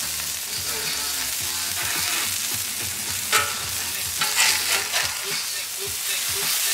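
Beef smash burger patties and onions sizzling steadily on a hot Royal Gourmet 36-inch flat-top griddle. A metal spatula scrapes across the griddle and flips a patty, making a few sharp scrapes and knocks about three to five seconds in.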